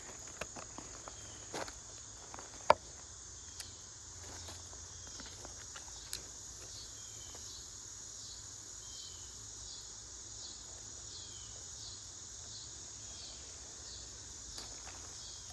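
Steady high-pitched insect chorus with faint regular pulsing. A few scattered sharp clicks in the first several seconds, the loudest about 2.7 s in.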